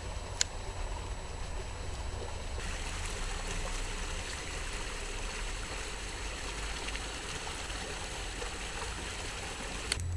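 Steady outdoor rushing noise, a little brighter after the first few seconds, with one sharp click about half a second in.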